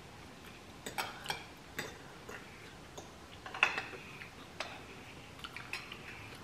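Metal spoons and forks clicking and scraping against bowls as two people eat, in irregular small taps, the loudest with a brief ring about halfway through.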